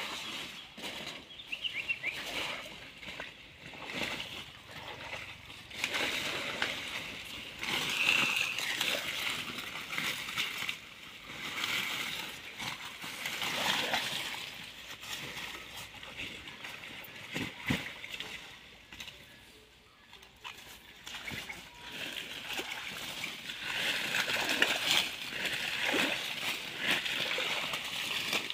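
A large cloth fishing net being hauled out of a shallow, weed-filled pond: uneven splashing and sloshing of water, with wet water hyacinth and mud dragged out along with it.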